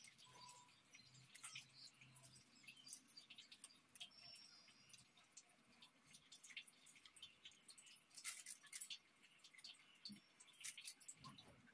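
Near silence: faint room tone with scattered soft, high clicks.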